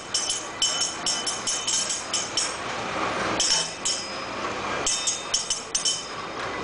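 Small brass bell on a kiddie-ride boat rung again and again by yanking its pull cord, in quick runs of rings with short pauses, over the ride's steady mechanical rumble and churning water.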